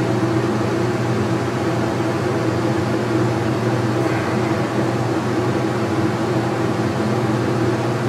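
Stick (SMAW) welding arc running on 3/8-inch beveled steel plate in the overhead position: a steady hiss with a steady hum underneath as the electrode is pushed into the bevel.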